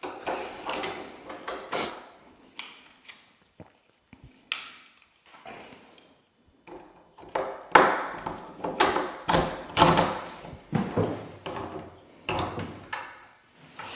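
A door and its newly fitted doorknob being worked: an irregular run of clicks and knocks from the latch and door, thickest about halfway through.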